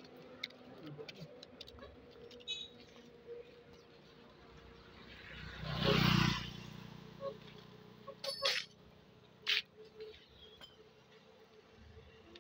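A vehicle driving past on the road, its noise swelling and fading over about two seconds near the middle. A few short sharp clicks follow, over a faint steady hum.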